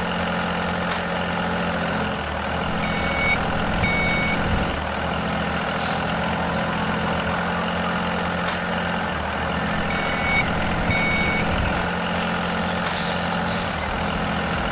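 Heavy truck-type engine running steadily. Two pairs of short high beeps, like a reversing alarm, sound about 3 s and 10 s in. Short hisses come twice, about seven seconds apart.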